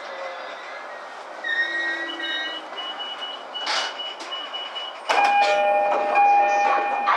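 E231-series electric train's brakes squealing in thin steady tones as it slows to a stop at a station, much louder from about five seconds in, with scattered clicks.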